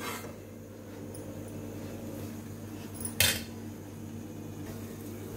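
A metal spatula clinks once against an iron kadhai about three seconds in, over a steady low hum.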